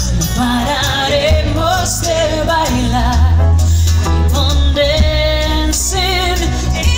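Live pop song from a band: a woman singing lead over acoustic and electric guitars, drums, keyboard and a heavy bass.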